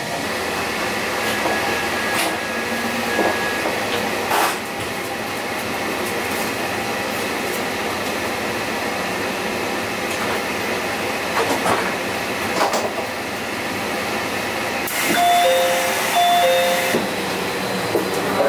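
Steady running noise inside a JR Central HC85 hybrid train coming into a station, with a few scattered clicks and knocks. About fifteen seconds in, the door chime sounds a high-then-low two-note ding-dong twice over a hiss as the doors open.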